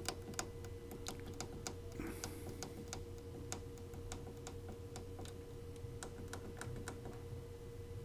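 Light, irregular clicking, a few clicks a second, over a steady electrical hum from a desktop PC whose Asus ROG Maximus VIII Hero motherboard is stuck in a boot loop, starting and shutting down right away.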